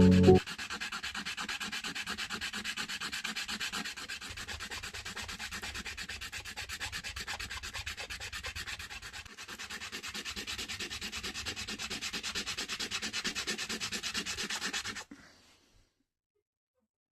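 Sandpaper rubbing back and forth on a small hand-carved wooden mushroom in quick, even strokes, several a second. It stops abruptly about fifteen seconds in.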